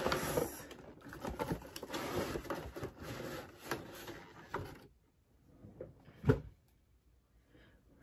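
Cardboard box and plastic packaging being opened and handled: rustling and scraping with small clicks. About five seconds in it goes quiet, then a single sharp knock.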